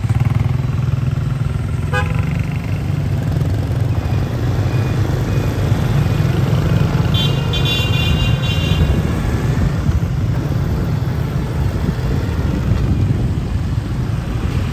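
Busy street traffic, a steady rumble of motorbike and car engines, with a vehicle horn honking for about a second and a half midway through.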